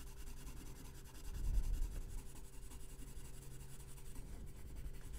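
Watercolor pencil tip scratching faintly on mixed media paper as it colours in, with a low steady hum underneath and a slightly louder rub about one and a half seconds in.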